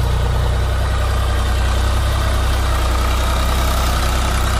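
HMT 3522 tractor's diesel engine running steadily close by, a loud, even low rumble.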